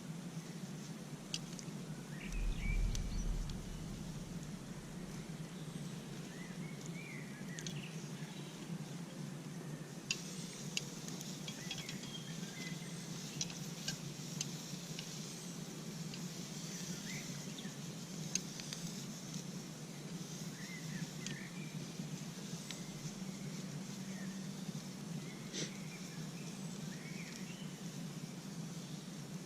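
Outdoor ambience of birds giving short chirps every few seconds, with scattered sharp clicks, a faint steady hiss and a steady low hum. A brief low rumble comes about two and a half seconds in.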